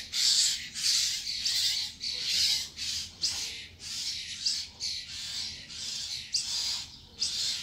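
Birds giving harsh, scratchy squawking calls in quick succession, a few a second, without a break: agitated screaming from birds around a fight.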